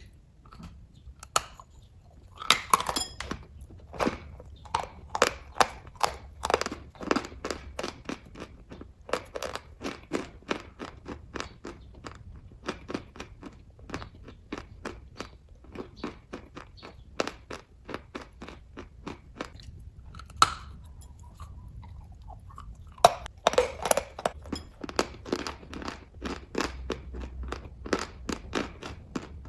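A person chewing kaju katli (cashew fudge) close to the microphone: a steady run of short chewing clicks and crunches, about two to three a second.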